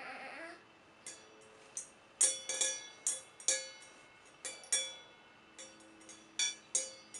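A metal bowl struck again and again at an uneven pace, about a dozen sharp hits from about a second in, each ringing briefly with a bell-like tone.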